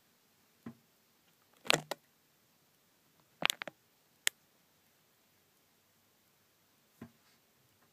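Handling noise from the recording phone: a few sharp clicks and knocks at irregular intervals over near silence, loudest about two seconds in, with a double knock about three and a half seconds in.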